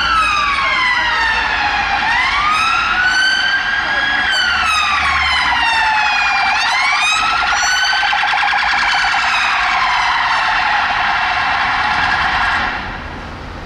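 Police car sirens wailing, the pitch rising and falling slowly about every two seconds, then cutting off abruptly near the end.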